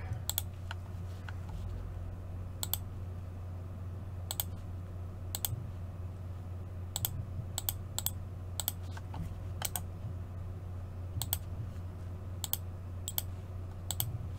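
Scattered, irregular clicks from someone working at a computer, some in quick pairs, over a steady low hum.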